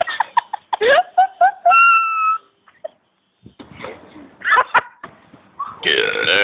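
People giggling and laughing in short rising bursts, a brief pause, then more laughter. Near the end a long, loud belch begins.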